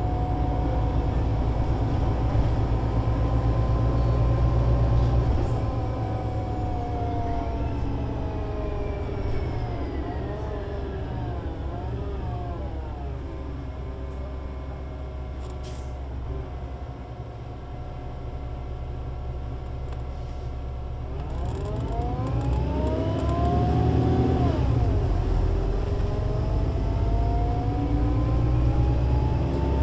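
Solaris Urbino 18 IV articulated bus with a DAF diesel engine and Voith Diwa 6 automatic gearbox: the engine and gearbox whine fall steadily in pitch as the bus slows, run quieter for several seconds, then rise again as it pulls away, with a gear change a few seconds into the acceleration. A brief click is heard near the middle.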